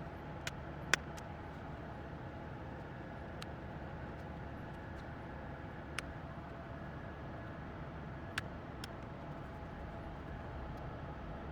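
A handful of sharp, light clicks, about six spread unevenly, over a steady low background hum, as from small tools or laptop parts being handled.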